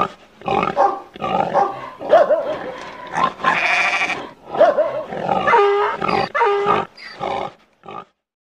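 A string of loud animal calls and noises, an intro sound effect, that cuts off abruptly about eight seconds in.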